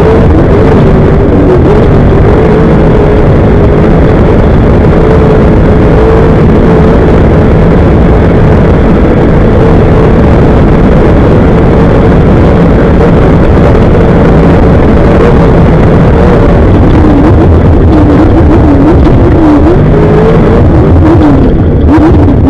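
Off-road race vehicle's engine running hard at high revs, very loud. Its pitch holds mostly steady, dips about three-quarters of the way through, climbs again, then dips once more near the end.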